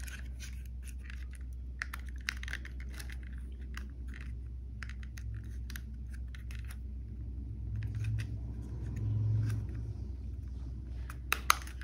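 Scattered small clicks and rattles of the E88 drone's hard plastic body and arm parts being handled and fitted together, over a steady low hum that swells for a couple of seconds later on.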